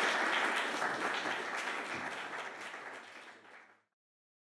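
Audience applauding, the clapping fading gradually and then cutting off abruptly a little before four seconds in.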